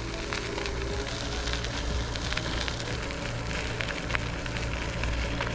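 A vehicle's engine running with a steady low hum while driving slowly, under a continuous crackling tyre noise with scattered small ticks.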